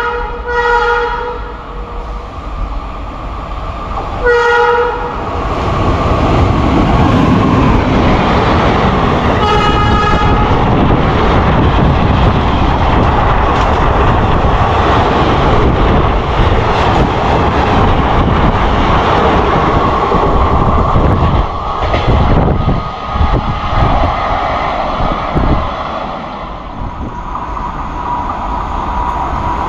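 Locomotive horn sounding three blasts in the first ten seconds, then a long rake of ICF passenger coaches running through at speed: a loud, dense rumble and clatter of wheels on rail for about twenty seconds that thins out near the end as the last coaches pass.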